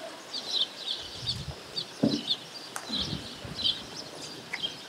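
Small bird chirping repeatedly in short high chirps, often in pairs, a couple of times a second, with a few soft low thumps in the first half.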